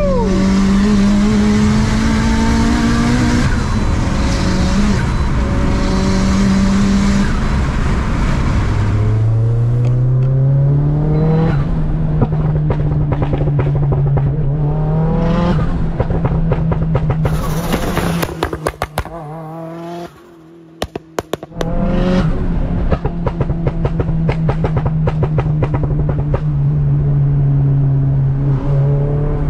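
Turbocharged, fully built Suzuki Swift Sport engine driven hard. It is held at high revs for several seconds, then drops and climbs back up through the revs in rising sweeps. About two-thirds in the engine note falls away briefly under a run of sharp pops and cracks, then it pulls steadily again.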